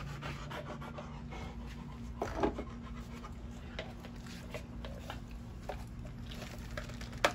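A dog panting softly and moving about, over a steady low hum, with one brief louder sound about two and a half seconds in.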